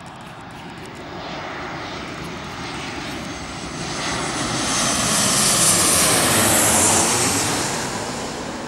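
Twin-engine jet airliner passing low overhead on landing approach with its gear down: a jet rumble with a high whine that swells to its loudest about five to seven seconds in, then fades.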